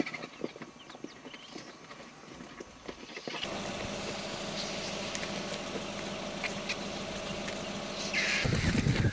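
Field sound of a vulture scrum at a carcass: faint scattered ticks at first, then a steady hiss of open-air ambience, and near the end a louder run of low knocks, rustles and scuffles as the vultures jostle and tear at the buffalo carcass.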